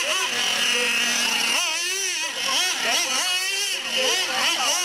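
Traxxas Rustler VXL RC truck's brushless electric motor whining, its pitch rising and falling again and again as the throttle is worked.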